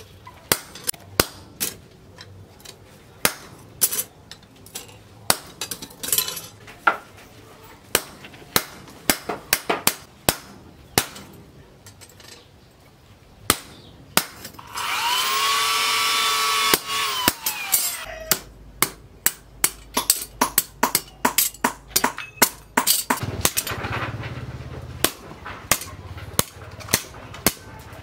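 Hand hammer striking a chisel through red-hot steel of a disc brake rotor on a steel post anvil: sharp metallic strikes, irregular, about one to two a second, with a short lull before the middle. About halfway a loud steady whine runs for about two seconds and drops in pitch as it stops.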